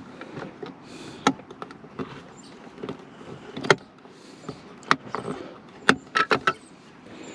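A scattering of sharp clicks and knocks, several spaced a second or so apart and a quick cluster of three near the end, over a faint steady hiss: handling noise from things being moved or set down.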